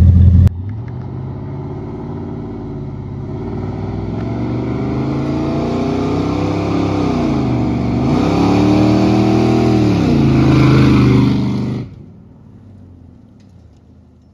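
1998 Dodge Ram 1500's 5.2 L Magnum V8, with headers and an H-pipe exhaust, accelerating hard: the engine note climbs, drops back twice as the transmission shifts, and climbs again, getting louder until it cuts off sharply near the end. A brief loud low rumble comes before it at the very start.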